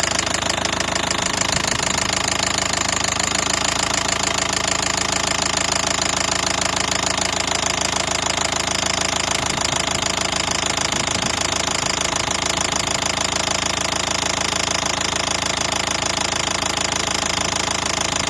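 Nissan Qashqai 1.5 dCi four-cylinder diesel engine idling steadily with a light, even knocking from the top of the engine, a knock or ring that came on suddenly and is the fault being chased.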